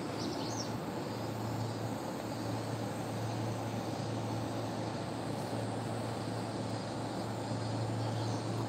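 Steady outdoor ambience on a railway station platform: an even low hum under a wash of background noise, with a faint short chirp near the start.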